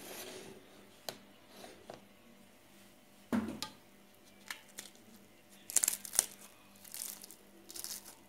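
Crisp, flaky baked crust of a spinach-filled rolled börek crackling and tearing in several short bursts as fingers press and break it, with one duller thump about three seconds in.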